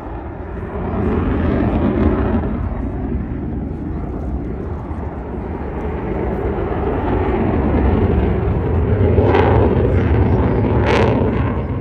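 Fighter jet flying overhead in afterburner: a loud, rough jet roar that swells about a second in and again later on, with two brief sharper bursts near the end.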